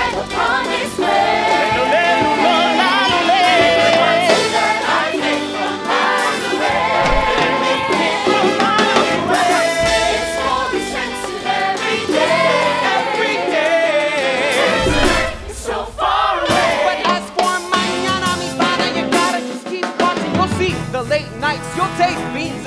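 Stage musical cast singing with band accompaniment, cut together from more than one number; the music changes about fifteen seconds in.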